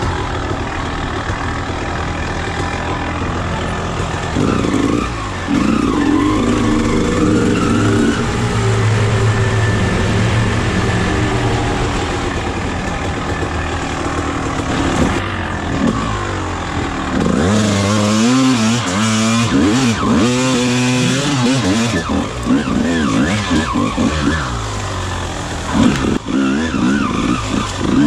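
1999 Honda CR250R's two-stroke single-cylinder engine as the dirt bike is ridden over rough single track. It runs fairly steadily at first, then from a little past halfway revs up and down in quick, repeated throttle blips, and again near the end.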